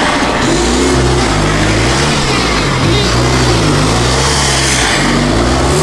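Off-road 4x4 race vehicle's engine revving up and down over and over, roughly once a second, over a loud, steady rushing noise.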